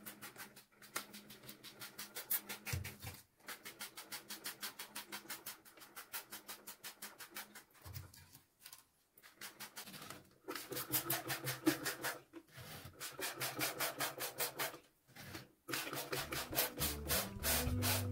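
Rapid rhythmic scrubbing of a Dyson vacuum part, about four to five strokes a second, stopping briefly a few times and starting again.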